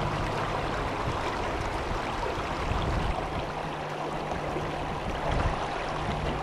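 Gold Creek, a clear mountain creek, flowing steadily: an even rushing of water.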